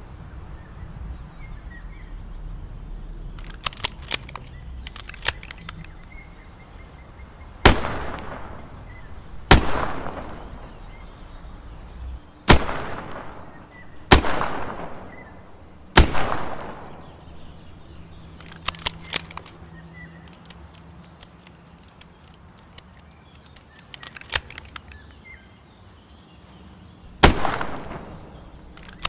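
Smith & Wesson 360J revolver firing six single shots, each with an echoing tail: five about two seconds apart in the first half and a sixth near the end. Clusters of quieter clicks come between the shots.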